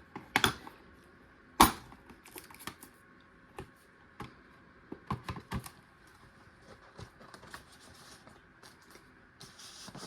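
Icon Gen 1 ratchets being handled: scattered sharp clicks and knocks of metal tools, the loudest about a second and a half in.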